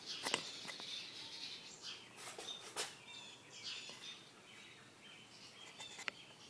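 Faint bird chirps, with a few sharp clicks and knocks scattered among them.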